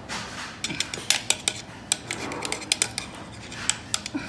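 A metal spoon clinking and scraping against a metal ring mould as diced avocado is packed into it, in a run of irregular sharp clicks.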